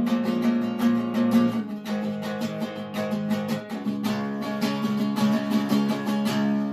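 Swedish-made Goya T-16 acoustic guitar strummed quickly and evenly, with a chord change about four seconds in.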